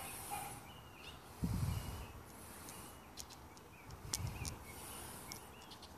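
Quiet outdoor background with faint short bird chirps, and two low bumps about a second and a half in and just past four seconds.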